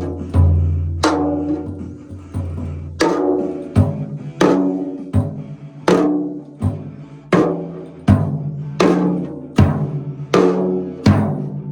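Background music with a steady percussive beat: evenly spaced struck notes, a little over one a second, each ringing out over a deep bass.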